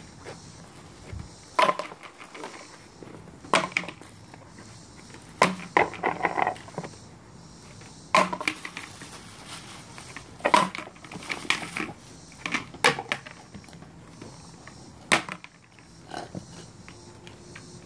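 Plastic frisbees dropped onto a concrete patio, landing with sharp clacks about nine times at irregular intervals.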